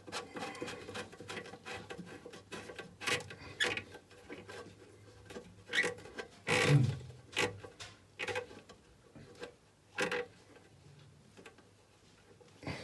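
Plastic parts of a toilet cistern fill valve being handled and screwed back together by hand: scattered clicks, knocks and rubbing, with one louder knock a little past halfway.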